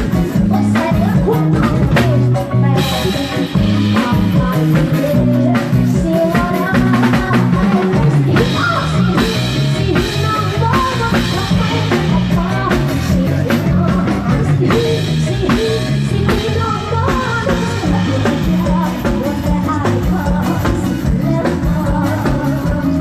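Live band music with a steady drum-kit beat and a repeating bass line.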